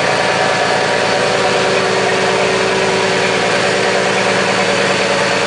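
A fishing vessel's engine running with a steady, unbroken drone.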